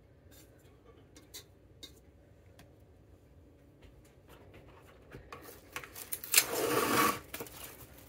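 Plastic wrap crinkling and rustling as it is handled and stretched out, loudest for about a second near the end, after a few faint taps and clicks.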